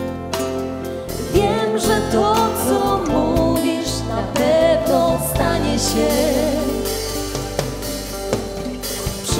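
Worship music from a band: a singing voice over held bass notes and accompaniment.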